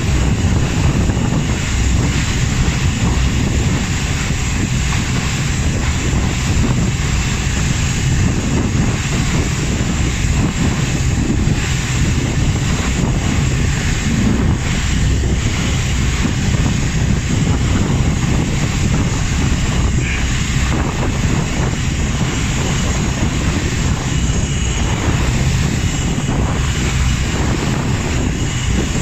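Passenger ferry's engines running steadily at cruising speed, a loud low drone, with water rushing in the wake and wind buffeting the microphone.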